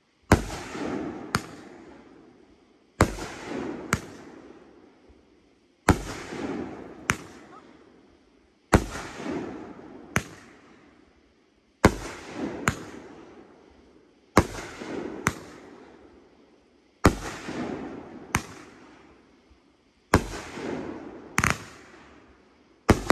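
Dragon Blade 'The Assassins' 16-shot 500 g firework cake firing one shell about every three seconds. Each shot is a thump as the tube launches, then a sharp bang as the shell breaks about a second later, followed by a fading hiss.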